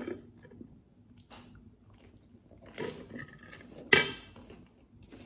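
Close-up eating sounds: quiet bites and chewing with scattered small clicks, and one sharp clack about four seconds in.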